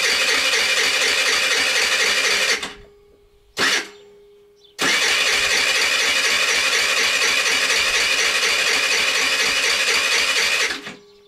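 Electric starter of a Racer Salut moped cranking its 139QMB 50 cc four-stroke engine without it firing: a long crank, a brief stab on the button, then a second long crank of about six seconds. It is the no-start fault the moped came in for.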